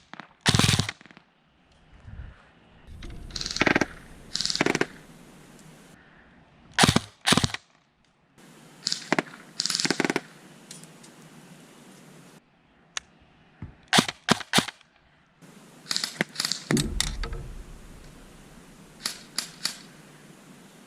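Krytac Kriss Vector airsoft electric gun firing: sharp single shots and short bursts of several shots, repeated irregularly through several short stretches.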